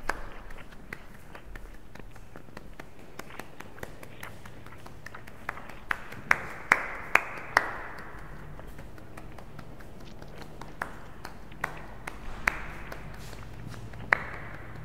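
Scattered sharp taps and clicks at an irregular pace, each with a brief ringing tail, over a faint low hum. The loudest come in a cluster of four or five about six to seven and a half seconds in.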